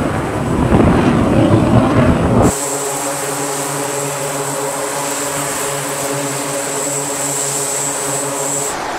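A loud, even rushing noise like wind for the first two and a half seconds. Then an E-2 Hawkeye's twin turboprop engines run on a carrier flight deck: a steady propeller drone with a high turbine whine, which cuts off near the end.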